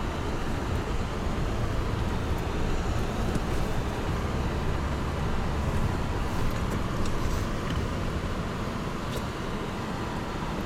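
Car cabin noise while driving on a snow-packed road: a steady low rumble of engine and tyres rolling over packed snow, with a few faint ticks in the second half.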